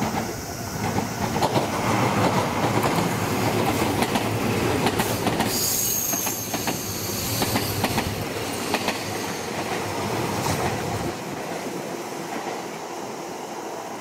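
Electric commuter train passing close by, its wheels clicking over rail joints, with a brief high wheel squeal about halfway through. The sound eases off after about eleven seconds as the train moves away.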